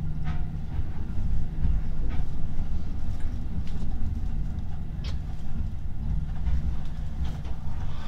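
Electric commuter train running at reduced speed for strong wind, heard from inside its cab: a steady low rumble from the wheels and motors, with a few sharp clicks scattered through.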